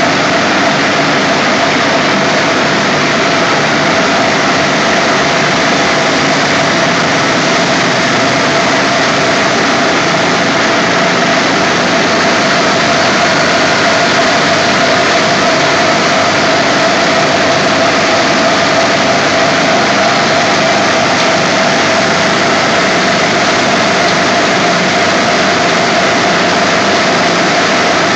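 Reciprocating air compressors driven by high-voltage synchronous electric motors running steadily: a loud, even machine noise with one steady tone through it.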